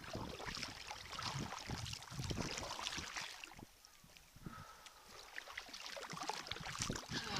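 Sea kayak paddle strokes, the blades dipping and splashing in the water in an uneven rhythm, with a short quieter lull a little past halfway.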